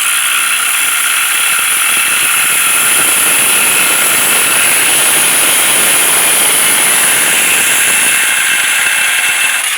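Angle grinder mounted as a homemade cut-off saw, running steadily at full speed with a loud high-pitched whine.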